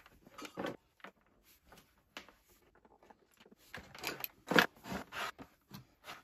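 Plastic computer keyboard being set down and slid across a wooden desktop, with its cables handled: a string of light knocks and clatters, the loudest about four and a half seconds in.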